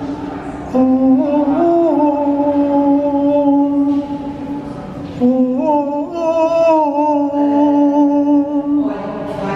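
A single voice chanting long, held devotional tones in mantra style: two long phrases, each stepping up in pitch near its start and then holding, with a short breath between them. Steady low background noise lies under the voice.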